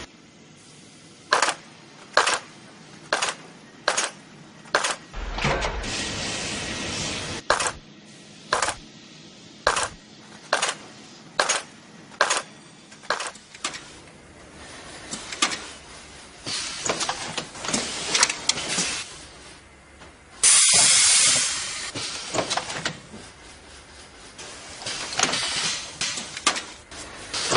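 Shoe-factory machinery hissing in short, sharp bursts, roughly one a second, with a longer, louder hiss about three-quarters of the way through and irregular hissing after it.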